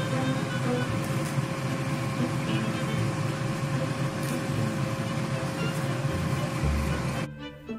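A steady machine-like whir with a constant hum, like a fan or appliance running. Background music cuts in near the end.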